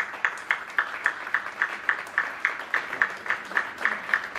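An audience applauding in a hall, with steady, evenly spaced claps at close to four a second standing out above the general clapping.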